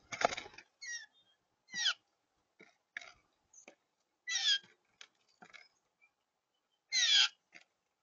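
Blue jay giving a series of short, harsh calls, each sliding down in pitch, the first joined by a loud flap of wings as it lands. Faint clicks of seed being pecked fall between the calls.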